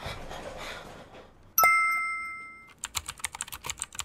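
A bright chime dings about one and a half seconds in and rings for about a second. It is followed by a quick run of keyboard-typing clicks, roughly ten a second, over about the last second and a half: edited sound effects over a title card.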